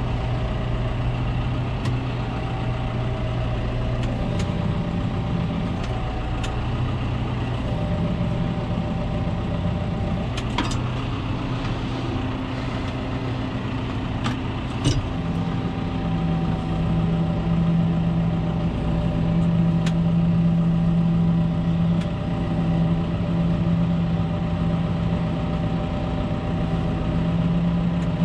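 Tractor engine running at low revs while the tractor is manoeuvred into position, with a couple of sharp metallic knocks. About halfway through, the engine note changes and grows a little louder and steadier.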